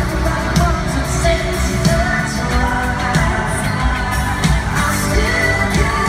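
Live pop song: a male singer with a backing band and steady drum beat, played loud through a concert PA and recorded from among the audience.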